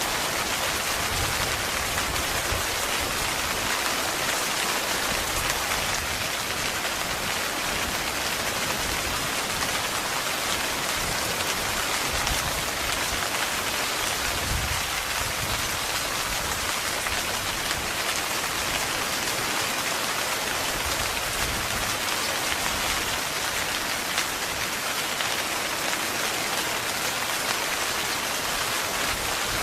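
Heavy rain falling steadily on a tent's fabric, an even, dense patter.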